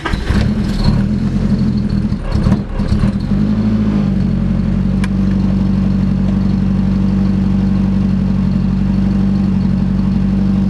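Nissan 240SX (S13) engine just started: it runs unevenly for the first few seconds, then settles into a steady idle about four seconds in.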